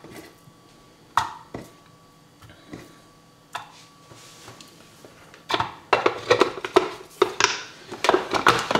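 A few light knocks as pieces of raw halibut go into a hand blender's plastic mini-chopper bowl, then a busy run of plastic clicks and clatter from about five and a half seconds in as the lid and motor unit are fitted on. The blender is not yet running.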